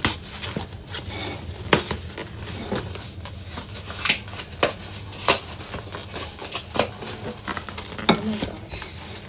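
Paper and cardboard cake packaging being handled and unwrapped by hand: irregular rustling and crinkling with sharp snaps and crackles every second or so.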